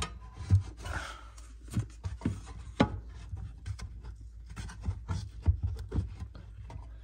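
Hands handling a boxed collector set of Zippo lighters: irregular taps, knocks and rubbing against the box and the surface it rests on.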